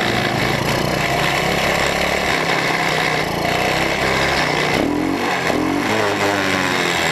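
Onboard sound of a 1985 Honda XL185S's single-cylinder four-stroke engine running as the bike rides along, mixed with wind noise. From about five seconds in the revs rise and fall several times.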